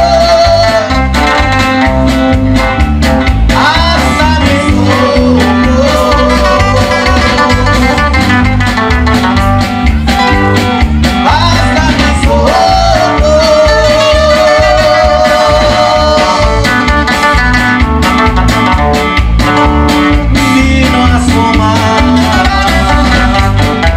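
A regional Mexican band playing live at full volume, with a steady bass beat, guitar and a wavering lead melody.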